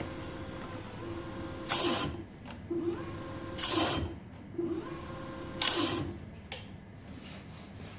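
Electric scooter wheel spun up by its hub motor, giving a steady whine, and braked three times about two seconds apart; each braking brings a short, harsh burst of noise and the whine falls away after it. The brake is being tested after adjustment and is judged still not right.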